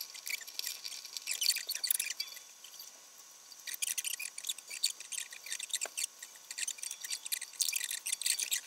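Sped-up handling noise of restringing a classical guitar: rapid high-pitched scratching, squeaking and clicking as nylon strings are threaded, pulled and wound on.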